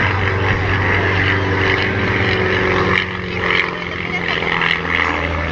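Propeller aircraft engine running steadily in flight, a low drone that drops slightly in level about three seconds in.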